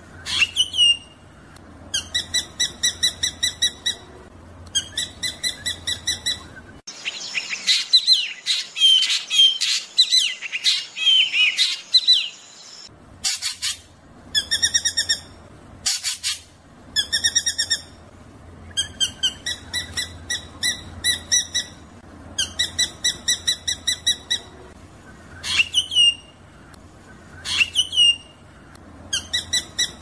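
Drongo song in rolling bursts: rapid runs of repeated notes, each about a second long, broken by sharp upslurred whistles. Midway, several seconds of dense, jumbled twittering and chatter take over before the rolling bursts return.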